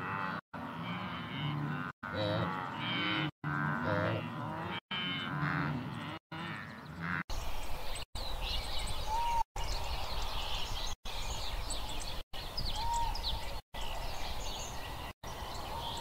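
Blue wildebeest giving repeated low, cow-like moaning grunts, one after another, for about the first seven seconds. Then the calls stop, leaving a steady low outdoor rumble with scattered bird chirps.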